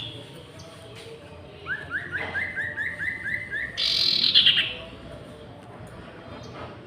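Common iora (sirtu) singing: a quick run of about nine rising whistled notes, then a louder harsh rasping burst.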